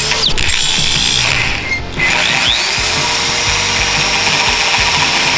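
Corded electric drill driving a 1¾-inch hole saw into a welded metal turbo header pipe. It stops briefly just before two seconds in and spins back up to a steady whine. The hole saw is worn and needs replacing. Background music plays underneath.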